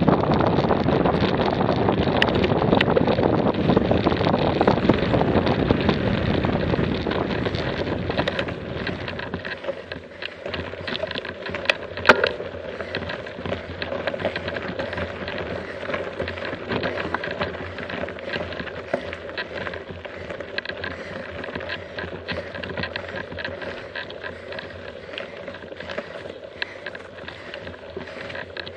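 Bicycle ridden fast down a gravel track, with wind buffeting the action camera's microphone over the tyre rumble; about nine seconds in the wind noise drops away as the bike slows to a crawl on a steep climb, leaving quieter tyre crunch on loose gravel, small rattles and a sharp click about twelve seconds in.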